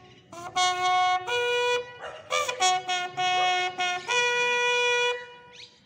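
Bugle playing a slow funeral salute call of long held notes, stepping between a few pitches.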